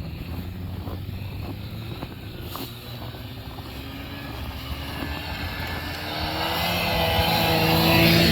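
Snowmobiles approaching, their engines running at a steady pitch and growing louder toward the end.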